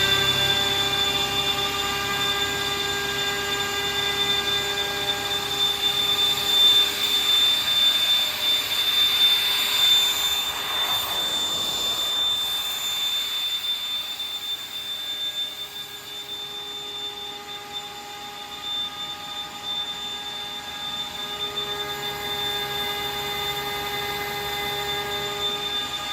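GRASSAIR RLR 30V 22 kW direct-drive screw compressor running just after start-up, a steady whine of several tones with a strong high note. A rushing noise swells around ten seconds in. The run is somewhat quieter from about a third of the way through, and the lower tones come back strongly near the end.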